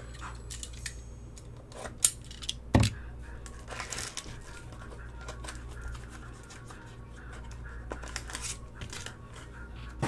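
A small cardboard box and a foil-wrapped trading-card pack being handled and opened. There is a sharp click about two seconds in and a thud near three seconds, then cardboard and foil wrapping rustling and tearing on and off.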